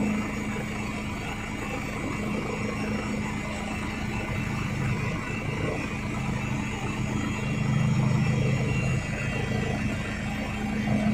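Helicopter in steady flight, heard from inside the cabin: a continuous engine and rotor drone with a low hum and a thin higher whine, swelling slightly about eight seconds in.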